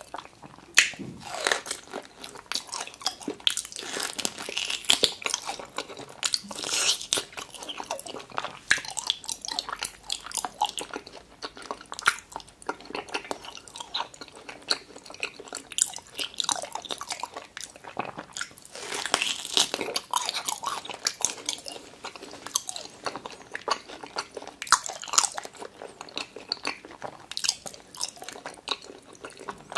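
A person chewing and biting thick slices of raw tuna, a dense, irregular run of short wet mouth clicks and smacks.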